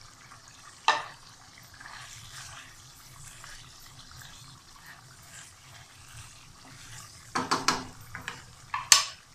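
Marinated chicken and whole spices sizzling in hot oil in a pot while being stirred with a spoon: a steady light sizzle, a sharp knock of the spoon on the pot about a second in, and a run of clinks and scrapes near the end.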